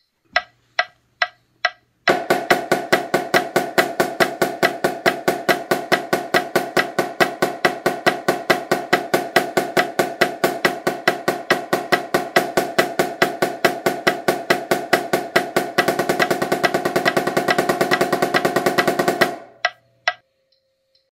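Marching snare drum playing an eighth-note exercise at 140 beats per minute, after four count-off clicks. The strokes run evenly and grow louder and denser for the last few seconds before stopping, followed by a couple of light clicks.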